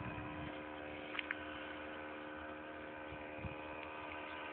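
Faint, steady drone of a 3W 106cc twin-cylinder gasoline engine in a 33% scale Extra 260 model aeroplane flying far overhead, holding a constant throttle.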